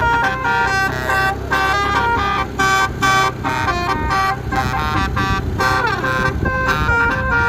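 Bus basuri telolet horn playing a quick melody of clear, flute-like notes that step up and down in pitch, over a steady low rumble.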